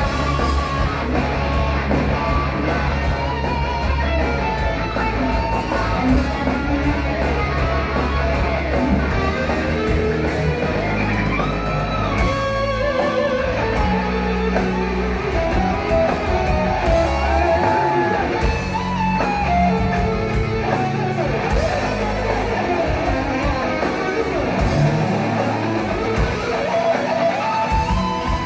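Heavy metal band playing live: distorted electric guitars over drums and bass. From about ten seconds in a lead line with bent notes rises above the band.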